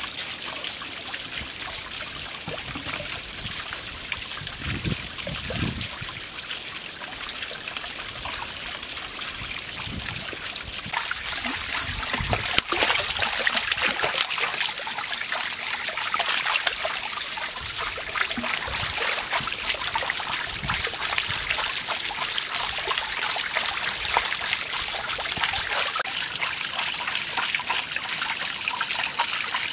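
Water splashing and trickling steadily from a bamboo water wheel into a small pond. From about a third of the way in, the splashing gets louder as water is poured out of a clay pot into the pond.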